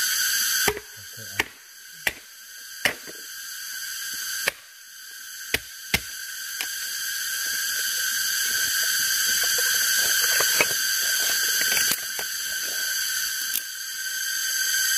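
Steady, high-pitched drone of forest insects, with about seven sharp clicks or knocks in the first six seconds.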